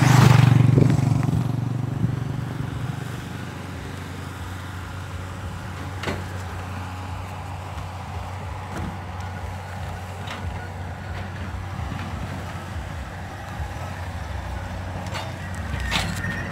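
Diesel dump truck engines idling with a steady low hum. At the start a motorcycle passes close by, its engine fading over the first two seconds, and the truck hum grows louder near the end as the nearest truck is reached.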